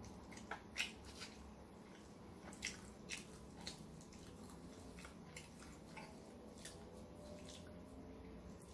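Faint, scattered wet clicks and smacks of a person eating with his fingers and chewing, irregular and a second or so apart.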